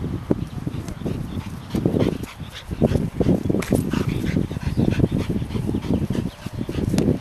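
Black-and-white collie-type dog vocalizing in short, repeated bursts, with a toy held in its mouth.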